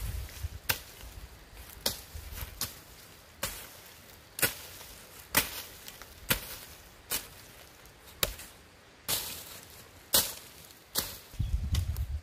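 Hand hoe chopping into soil, about a dozen separate strikes roughly a second apart.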